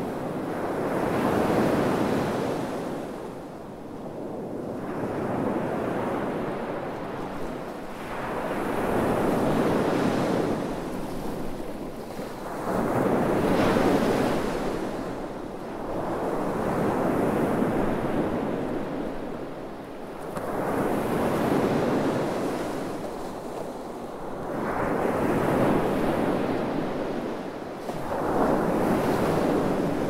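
Sea waves breaking on a sandy beach and washing up the sand, the surf swelling and falling about every four seconds.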